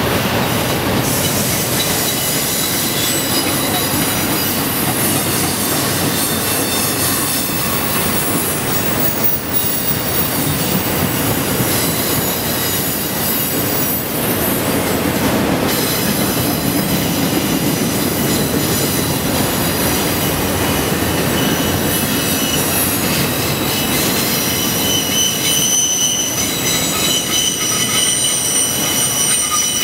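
Autorack freight cars rolling steadily past close by, with a continuous rumble of wheels on rail. High wheel squeal comes and goes, briefly at the start and around the middle, and grows strongest near the end.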